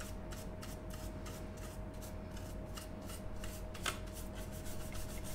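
A soft hair-dye brush rubbing dust off a Cisco Linksys E900 router's circuit board and plastic case, in many quick, light strokes.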